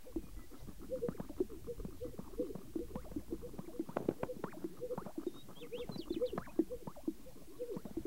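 Greater sage-grouse lek: displaying males make a continuous chorus of low, hollow pops from their inflated air sacs, mixed with clicks. A few thin high notes come in about two-thirds of the way through.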